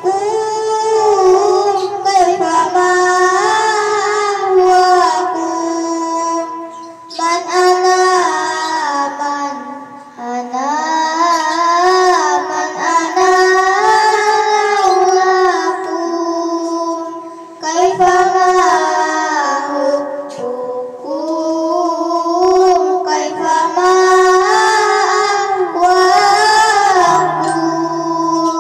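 Young girls singing a sholawat, an Islamic devotional song, in a melody sung in phrases with short breaks between them.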